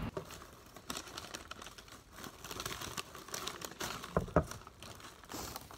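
Paper rustling and crinkling with scattered small clicks as hands handle a textbook, notebook and pens on a desk, with two soft knocks about four seconds in.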